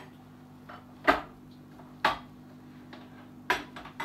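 Tableware being handled on a table: a handful of sharp knocks and clinks, about one a second, with three quick ones close together near the end.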